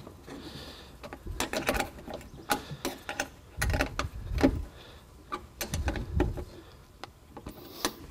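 Metal wrench working a nut on an antenna mounting stud as it is tightened: a run of irregular metallic clicks and clinks, with a few duller knocks about halfway through.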